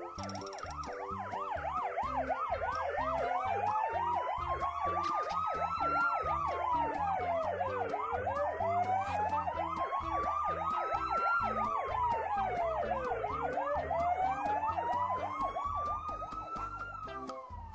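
Toy ambulance's electronic siren sounding: a fast warbling yelp layered over a slower wail that climbs for a few seconds and then drops, three times over, fading out near the end.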